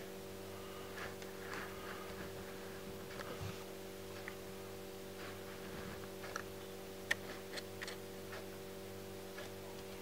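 Faint scattered clicks and ticks as a camera lens is handled and turned in the hand, over a steady low electrical hum.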